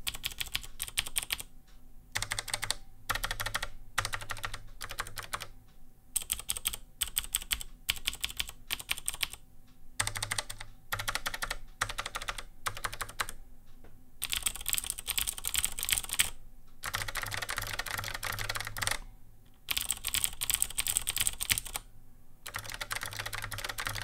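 Typing on two mechanical keyboards in turn, in word-length bursts of key clicks with short pauses between. First is a Hottek 1KB101 with HTK click-leaf switches, then a Cherry MX Blue keyboard.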